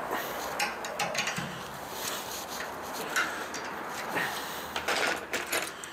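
Scattered metal clicks, clinks and scrapes from a 1953 Blue Point brake flaring tool being handled in a vise as its yoke and screw handle are worked off a freshly flared brake line, with a quick cluster of sharper clicks near the end.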